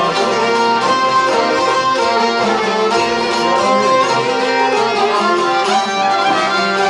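Albanian folk ensemble playing an instrumental passage: a violin leads over accordion and strummed long-necked lutes, in a steady dance-like rhythm.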